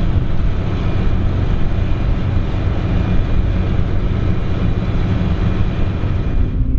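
Krone BigX 700 self-propelled forage harvester working under heavy load: a loud, steady engine and machinery rumble.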